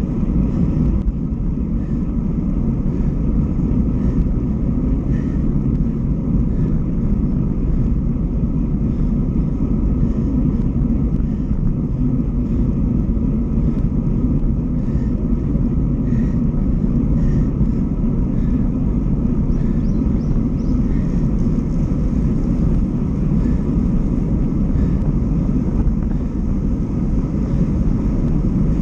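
Steady rushing wind and road noise on the microphone of a camera riding on a moving road bike, with no change in level throughout.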